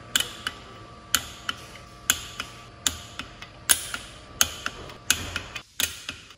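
Click-type torque wrench ratcheting back and forth on the main bearing cap bolts of a Honda D16 engine block as they are torqued to 38: a sharp click about every second, each followed by a softer click.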